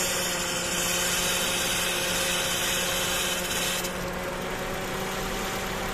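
2003 Toyota Vios engine idling with the misfire being diagnosed, together with a loud hiss of air that cuts off about four seconds in.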